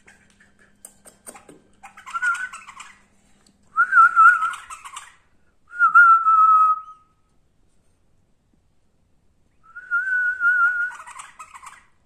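Caged bulbul singing four short, wavering whistled phrases, about a second each, with gaps between them and a longer pause before the last.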